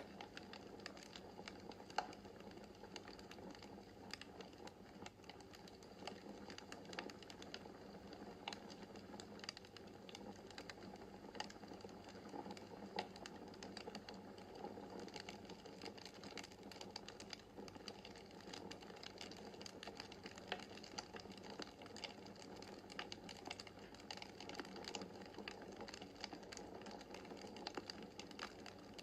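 Wood fire in a fireplace crackling: many small sharp pops and clicks scattered irregularly over a soft, steady rush of the burning logs, with one louder pop about two seconds in.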